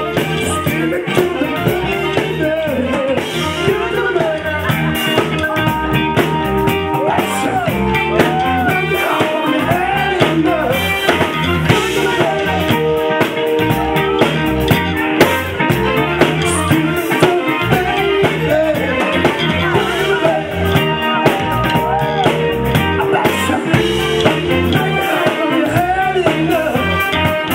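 Live soul-funk band playing loudly, with a singer on a microphone over drum kit and electric guitar.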